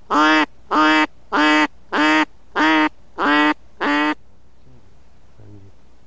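A series of loud duck quacks, seven evenly spaced calls about every half second, which stop about four seconds in.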